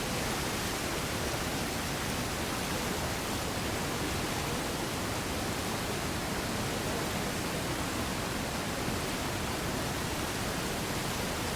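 Manavgat Waterfall's water rushing with a steady, even roar of noise.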